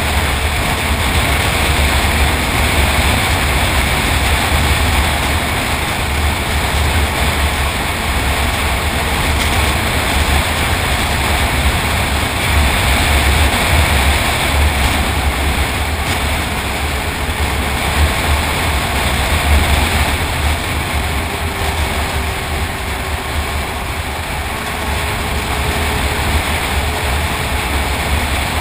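Snowmobile running at a steady trail cruising speed: its engine drone is mixed with a loud, flickering wind rush on the microphone. The engine pitch holds even, easing a little lower about three-quarters of the way through.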